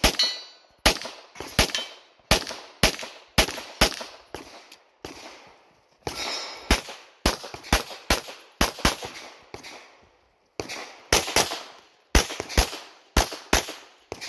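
Pistol shots in a rapid string of single shots and quick double-taps, each with a short echoing tail, pausing briefly twice.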